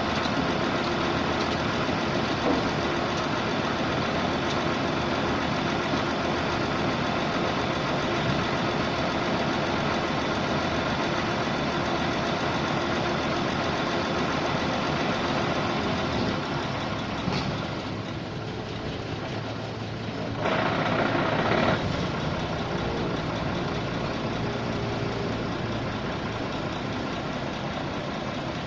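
The engine of a portable 655 CFM air compressor running steadily. About two-thirds of the way in the sound drops briefly, then there is a short, louder rush of noise lasting about a second. After that it runs on a little quieter, with a low steady hum.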